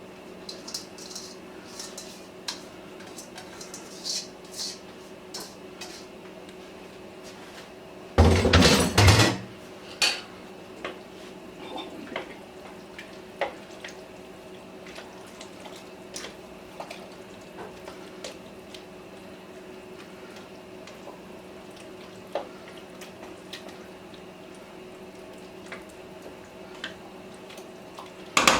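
A spoon clinking and scraping against a pot while stirring a thick pot-pie filling, with a short spell of louder clatter about eight seconds in. A steady low hum runs underneath.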